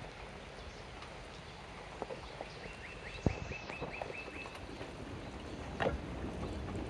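A bird's rapid trill of about eight short, evenly spaced high chirps, roughly four to five a second, lasting under two seconds, over a steady outdoor hiss with a sharp knock and a few scattered clicks.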